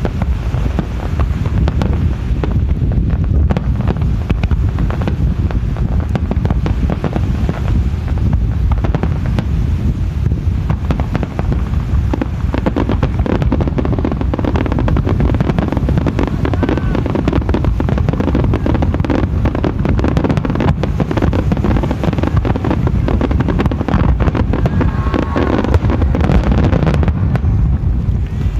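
Aerial fireworks shells bursting in a rapid, continuous barrage of bangs and crackles, over heavy wind rumble on the microphone.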